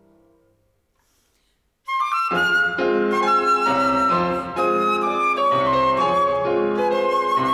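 Silver concert flute and Steinway grand piano playing a duet. A low piano chord dies away, and after a pause of about a second and a half the flute comes in with a held melody. The piano joins a moment later with repeated chords underneath.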